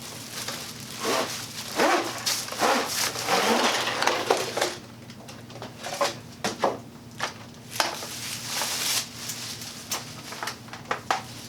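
Irregular knocks, clicks and rustles of objects being handled, busiest in the first half and again past the middle, over a faint steady low hum.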